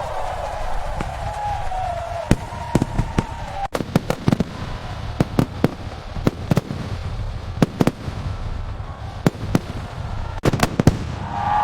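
Fireworks exploding: a string of sharp bangs at irregular intervals, several in quick clusters, over a low rumble.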